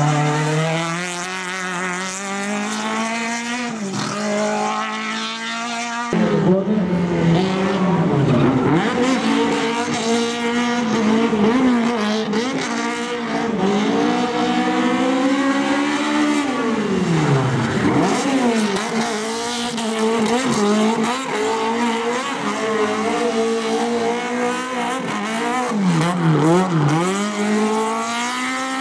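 Opel Kadett GTE hillclimb race car's engine at racing revs, its note climbing through the gears and falling away sharply on lift-off several times. About six seconds in the sound jumps abruptly louder and fuller.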